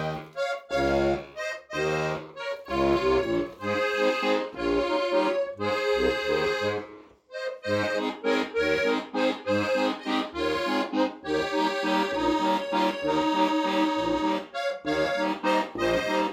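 Button accordion played live: a lively folk tune with a rhythmic bass-and-chord accompaniment under the melody, breaking off briefly about seven seconds in before going on.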